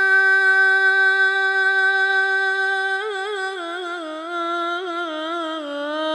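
A male qari's voice, amplified through a microphone, chanting the closing salawat in Quranic recitation style. He holds one long steady note for about three seconds, then breaks into a wavering, ornamented melisma that slowly descends in pitch.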